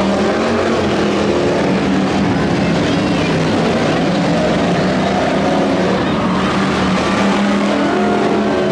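Race car engines running loudly and without a break, their pitch shifting up and down as they rev.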